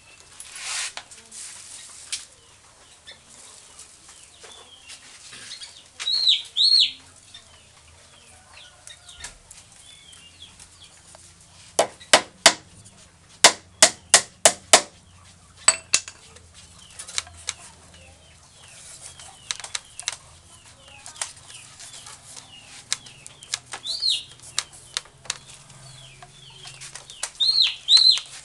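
A rattan strand rustling and scraping as it is pulled by hand and wrapped tight around a bamboo joint, with a quick run of about ten sharp clicks about halfway through. A few short high bird chirps come now and then.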